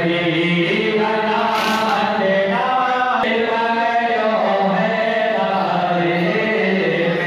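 Voices chanting together in long, held notes, like a devotional chant or mantra, with music beneath.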